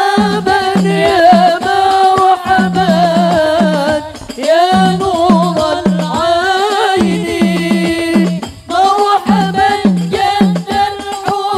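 A woman singing a sholawat, an Islamic devotional song in Arabic, through a microphone and PA, in long phrases of wavering, ornamented notes over a steady low beat.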